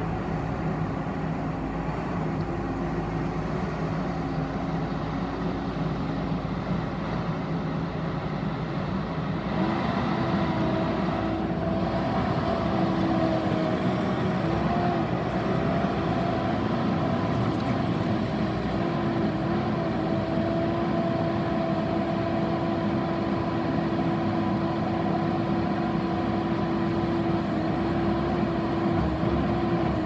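Bobcat T770 compact track loader's diesel engine running steadily while the machine drives and works its bucket. About ten seconds in the sound gets louder and a steady whine sets in, holding to the end.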